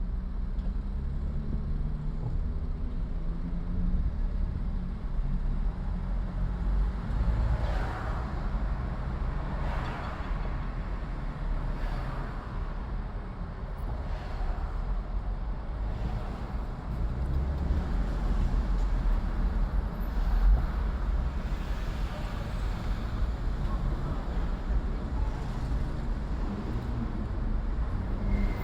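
City street driving: a car's steady low engine and road rumble, with other traffic going past; several vehicles pass in quick succession about a quarter to halfway through.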